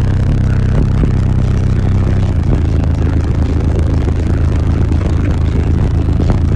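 Bass-heavy music played very loud through six Sundown U15 15-inch subwoofers in a ported box, heard from inside the vehicle's cabin, with the low notes overloading the recording and scattered rattles. The bass pattern changes about two and a half seconds in.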